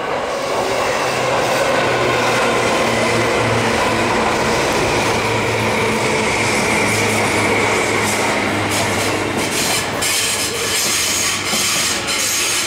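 Tobu Railway electric commuter trains passing close by: a steady rumble of steel wheels on rail with a low motor hum. In the last few seconds this gives way to quick, rhythmic clicks of wheels running over rail joints.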